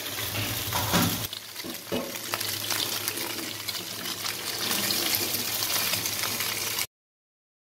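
Chicken pieces sizzling as they shallow-fry in a non-stick pan, a steady hiss with two light knocks about one and two seconds in. The sound cuts off abruptly near the end.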